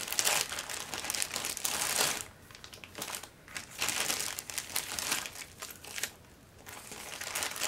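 Clear plastic zip-top bags crinkling as they are handled and items are pulled out of them, with quieter pauses about two and a half seconds in and again about six seconds in.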